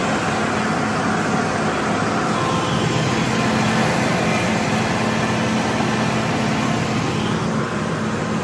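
Large farm tractor's diesel engine running steadily under load while pulling a disc harrow through a field.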